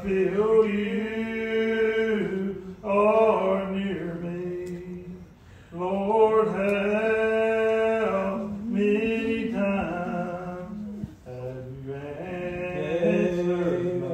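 Slow unaccompanied hymn singing in the Old Regular Baptist style, the voices holding long drawn-out notes in phrases of two to three seconds with short breaks between them.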